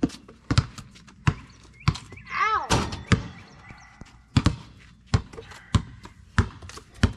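Basketballs bouncing on an asphalt driveway: a dozen or so sharp thuds at an uneven, dribbling pace. A child's short cry falling in pitch comes about two and a half seconds in.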